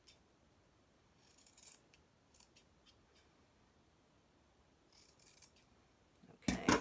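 Scissors making a few short, quiet snips through cotton fabric seam allowances, with a much louder double knock near the end.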